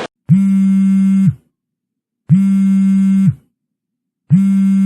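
Electronic phone ringing tone: a buzzy steady tone sounds for about a second and repeats every two seconds, with dead silence between. Three rings are heard.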